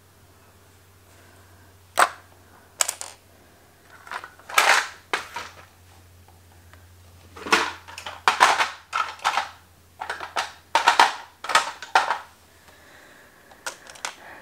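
Plastic eyeliner pencils and makeup tubes clicking and clattering in short, irregular bursts as they are set down and shuffled into a pile on a wooden floor.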